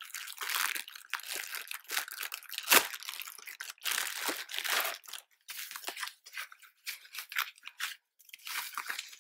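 Paper and clear plastic packaging crinkling and rustling in irregular bursts as it is unwrapped by hand, with one sharp, loud crunch about three seconds in.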